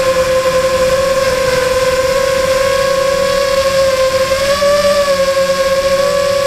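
Motor and propeller of an FPV model aircraft running at a steady high-pitched whine, heard from the onboard camera. The pitch rises briefly about four and a half seconds in, then settles.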